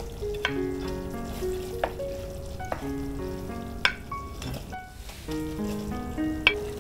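Background music melody playing over a pan of cream sauce sizzling on the hob, with a few sharp clicks and scrapes of a spatula against a plate and pan as chicken and mushrooms are slid into the sauce.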